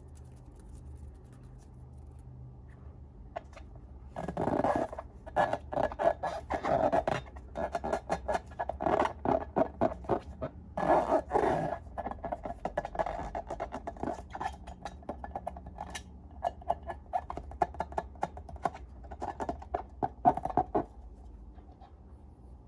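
Slime being squeezed and worked by hand: a long, irregular run of sticky clicks and squelches that starts about four seconds in and stops near the end.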